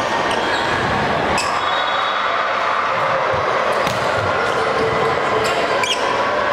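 Volleyball rally in a large gym: several sharp slaps of hands on the ball, with short sneaker squeaks on the hardwood floor, over the hall's steady din of voices and play on other courts.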